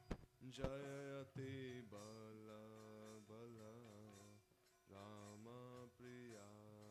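Faint male voice singing a slow Vaishnava kirtan in long, wavering held notes with short breaths between phrases, over a steady low drone. Two sharp knocks sound within the first second.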